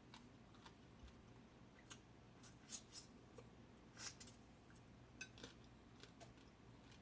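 Faint, scattered clicks and small cracks from picking apart and eating spicy blue crab, the strongest a little under three seconds in and again about four seconds in.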